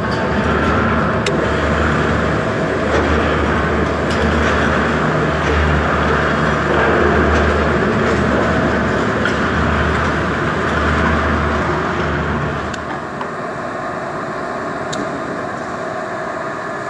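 Heavy workshop machinery running with a steady low rumble and a loud mechanical noise over it, which drops away about three-quarters of the way through.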